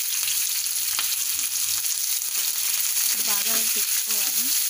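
Curry leaves, onions and green chillies sizzling in hot oil in a non-stick frying pan, a tempering (tadka) in its early stage. The steady sizzle goes on throughout, with a wooden spatula stirring the pan near the end.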